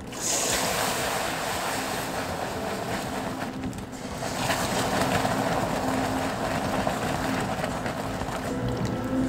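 Cream poured into hot caramelized sugar in a stainless steel pot: the caramel boils up at once with a hissing, rapid bubbling that swells again about halfway through as more cream goes in.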